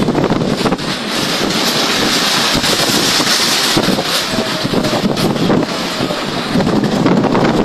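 Heavy rainstorm: a dense, steady rush of rain and gusting wind, with many small sharp taps and wind buffeting the microphone.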